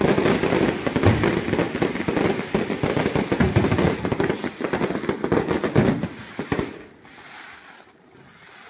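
Fireworks display: a dense barrage of bangs and crackling that thins out and stops about six and a half seconds in, leaving a low hiss.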